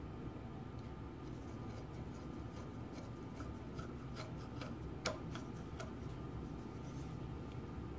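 Screwdriver turning small screws into the retainer plates of a Linotype knife block: faint scattered metal ticks and clicks, with one sharper click about five seconds in, over a low steady hum.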